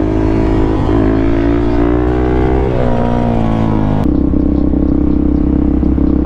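Suzuki DRZ400SM supermoto's single-cylinder four-stroke engine accelerating hard through the gears, its pitch climbing and dropping back at each shift about a second in and again near the middle. About two-thirds through it settles suddenly into a steady drone.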